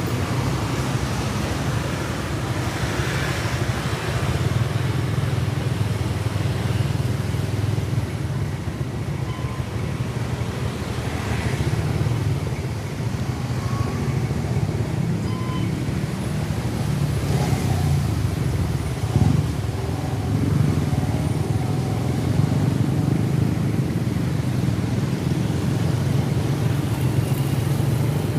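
Steady motor-vehicle engine and road noise in moving traffic, a continuous low drone.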